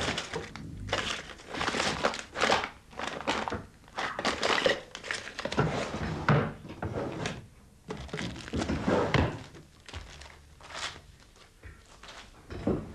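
Irregular knocks, thuds and rustles of papers and objects being handled at a wooden desk. They are busier in the first half and sparser later.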